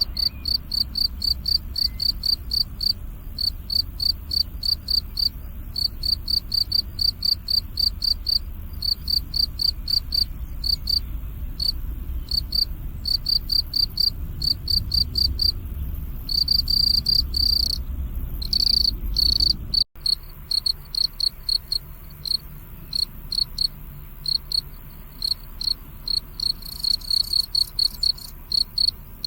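Crickets chirping in a steady, rapid run of high, pulsing chirps, with a few longer drawn-out chirps about two-thirds of the way through. A low rumble sits underneath until it cuts off abruptly about 20 seconds in.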